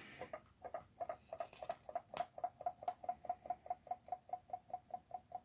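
A fast, very even ticking or squeaking, about five a second, each tick at the same pitch.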